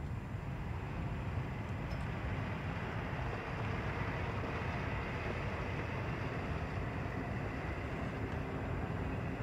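Steady low rumble of distant vehicle engines, with a faint engine hum becoming clearer from about four seconds in.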